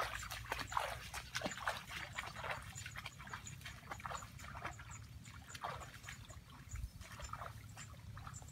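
Footsteps sloshing and splashing through shallow flood water, fading as the walker moves off. Short chirping calls and a faint high-pitched ticking, repeating a few times a second, run in the background.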